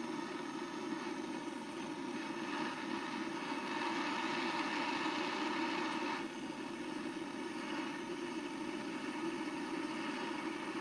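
Jeweller's blowtorch flame running steadily, heating a piece of scrap silver toward melting. The hiss eases a little about six seconds in.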